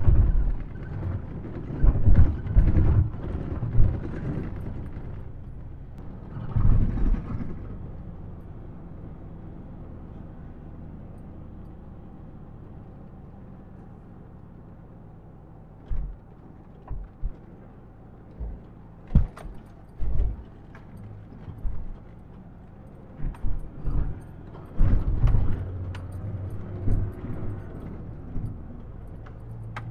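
A Ford Ranger's 2.2-litre turbo-diesel pickup driving a rough gravel track, heard from inside the cab: a steady low engine and road drone with many sharp knocks and rattles as the truck jolts over the bumps. The knocks come thickly in the first few seconds and again through the last half, with a smoother, quieter stretch between.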